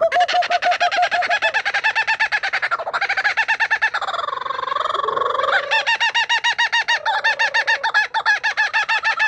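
Birds calling in fast, even runs of short pitched notes, about eight a second, with a smoother drawn-out call in the middle.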